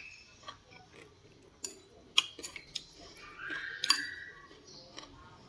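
Eating utensils clinking and tapping against a bowl several times during a meal of noodles, the sharpest clicks a little over two seconds in and near four seconds.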